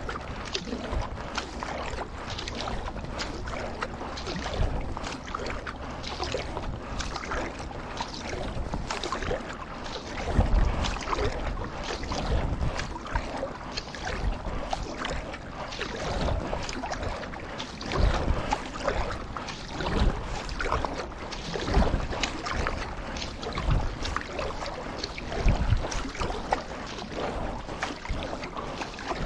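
Paddling on water: a continuous wash of paddle splashes and water noise. From about ten seconds in, heavier low thuds come roughly every two seconds with the strokes.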